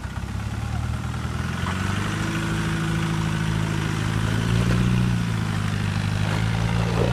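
Land Rover Discovery's engine running steadily under load as the 4x4 crawls up a steep dirt bank, its pitch rising a little about two seconds in.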